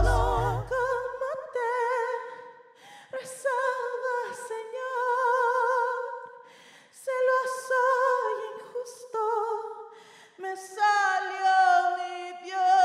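A woman singing unaccompanied: long held notes with a wide vibrato, in about four phrases broken by short pauses. The low backing beat fades out in the first second or so.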